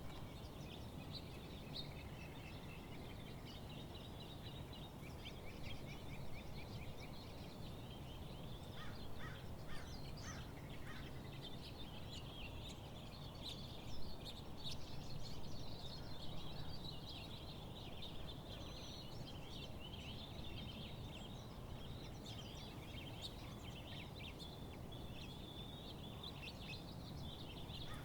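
Several birds singing and chirping in a dense, continuous chorus over a steady low background rumble.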